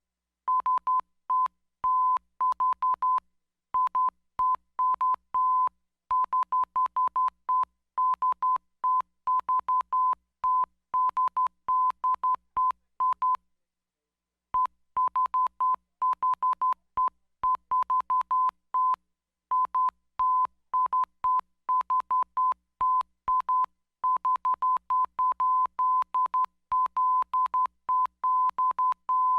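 Morse code: a single steady beep tone keyed on and off in a fast run of short and long beeps, breaking off for about a second around the middle before carrying on.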